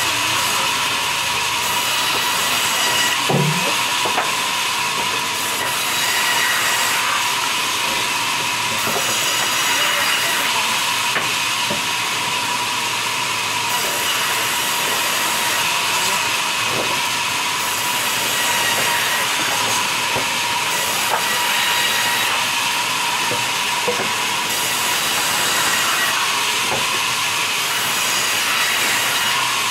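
Sawmill band saw ripping a log lengthwise: a loud, steady hiss of the blade through the wood with a constant high whine, and a few faint knocks as the log is pushed along the table.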